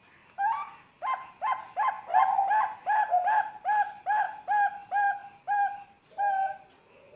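Young zebra dove (perkutut) about three months old singing: a quick run of about fourteen short, clear cooing notes, each rising then falling in pitch, about two a second, with a short pause before the last note.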